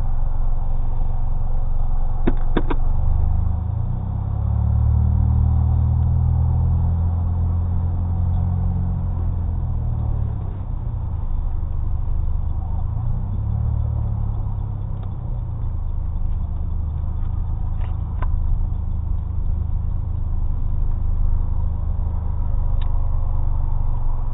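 2005 Chevrolet Cobalt with a custom exhaust, heard from inside the cabin: a low engine and exhaust drone that swells about four seconds in as the car moves off, then eases to a steadier hum at slow speed. A few sharp clicks are heard.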